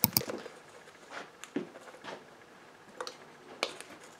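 Handling noises: a sharp click at the start, then a scattered handful of soft clicks and knocks.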